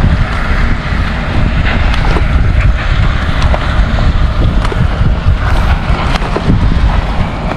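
Strong wind buffeting the microphone: a loud, gusting rumble that rises and falls, with scattered light clicks and knocks.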